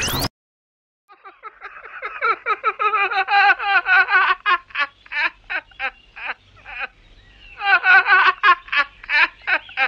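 A young man laughing wildly in two long bouts of quick, pitched ha-ha pulses, starting about a second in. Just before it, a music track with a rising sweep cuts off abruptly.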